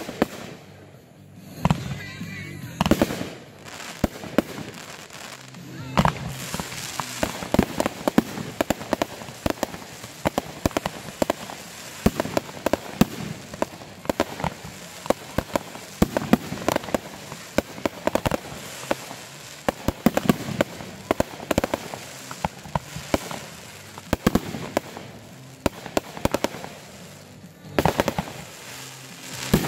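Aerial fireworks bursting overhead in quick succession: sharp bangs of shells breaking, with dense crackling between them. There are heavier bangs near the start and near the end.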